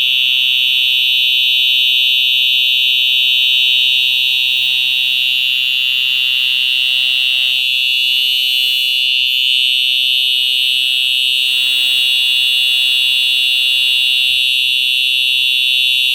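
Simplex TrueAlert 4903-9425 fire alarm horn sounding a loud, steady, unbroken tone, set off by a pulled pull station.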